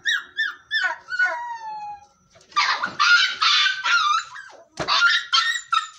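A puppy crying in short high whimpers that slide down in pitch, then yelping loudly and harshly as it is grabbed and lifted, with more short yelps near the end.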